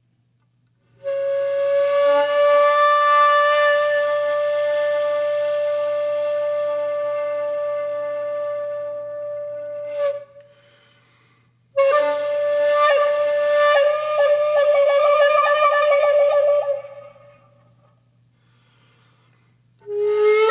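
Background music: a solo flute playing long held notes in separate phrases. The second phrase wavers rapidly, and a new note begins near the end.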